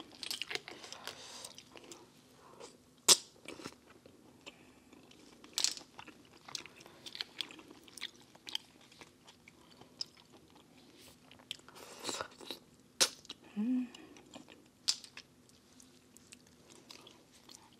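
Close-miked chewing of steamed clams, with a few sharp clicks and crunches scattered through it, one of them on the hard little bits in the clam meat.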